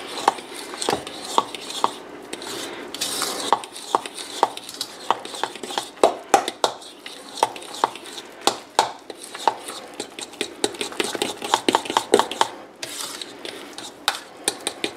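Wooden spoon stirring thick batter by hand in a mixing bowl, with frequent irregular knocks and scrapes of the spoon against the bowl's sides.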